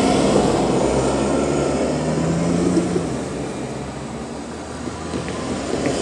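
Small cars and kei vans driving past close by one after another, engine and tyre noise swelling and fading as each goes by.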